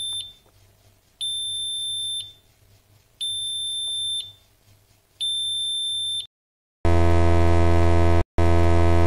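Electronic alarm tones: a high, pure beep about a second long repeating every two seconds, then about seven seconds in a much louder, harsh low buzzer sounding twice with a short break.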